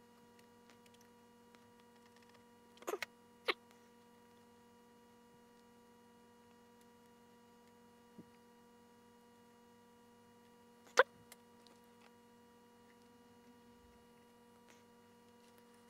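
Faint steady electrical hum with a few short clicks and taps from a small model locomotive chassis and a cleaning tool being handled; the sharpest tap comes about eleven seconds in.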